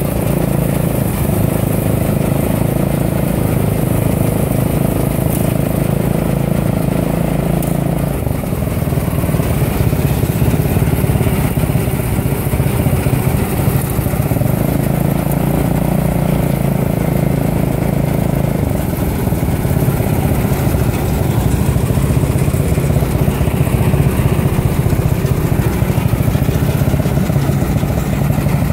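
A Fahr M44 combine harvester running while it cuts and threshes grain: its engine and threshing machinery make a steady drone, which shifts slightly about eight seconds in.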